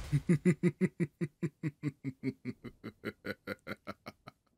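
A man's triumphant laugh: a rapid run of "ha-ha-ha" pulses, about five a second, loudest at the start and trailing off over about four seconds.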